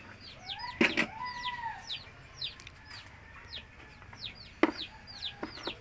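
Chicks peeping over and over: short, high, downward-sliding chirps, two or three a second, with a longer rising-and-falling call about half a second in. A few sharp knocks from tin cans being handled on a shelf, the loudest about a second in and near the end.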